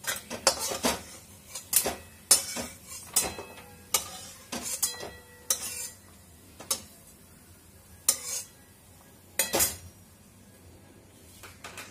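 A spatula scraping and clanking against a metal kadai as fried coconut pieces are scooped out of the hot oil: about a dozen sharp knocks, some ringing briefly, stopping about ten seconds in.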